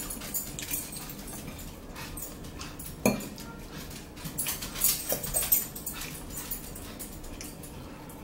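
Eating sounds at a table: forks clicking and scraping on plates, with chewing and mouth noises. There is one sharp clink about three seconds in and a busy run of clicks around five seconds.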